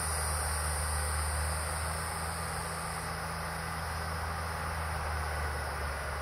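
Steady outdoor background: a low, even hum under a high, continuous insect drone, with no distinct events.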